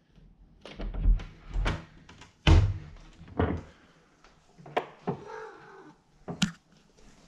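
Domestic cat meowing for attention once, about five seconds in, amid several sharp thumps and knocks as a door is handled and opened.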